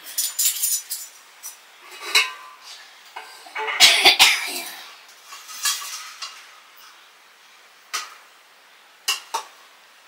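Spoons and utensils clinking and scraping against dishes and pots in short, uneven spells. The loudest clatter comes about four seconds in, followed by a few single clinks near the end.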